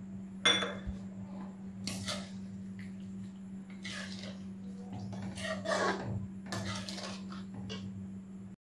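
Slotted steel spoon clinking and scraping against a metal kadhai while sugar is stirred into milk, with one sharp clank about half a second in and several lighter scrapes and clinks after it.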